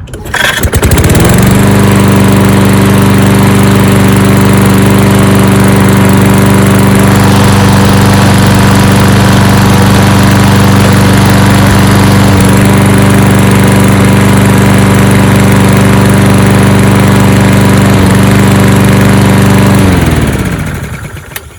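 Toro Recycler walk-behind mower's small engine cold-started by recoil pull, catching on the first pull and revving up within about a second and a half. It runs steadily at speed on its newly replaced carburetor, then is shut off about 20 seconds in and winds down.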